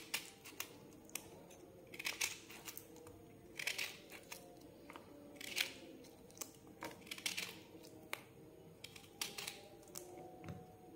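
Small kitchen knife cutting through thick galgal (hill lemon) rind on a wooden cutting board: faint, irregular short cuts and taps every second or two, over a faint steady hum.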